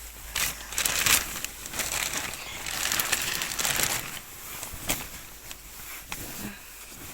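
Rustling and crinkling of crinkly material being handled, in irregular noisy bursts that are busiest in the first four seconds, with a sharp click near the five-second mark.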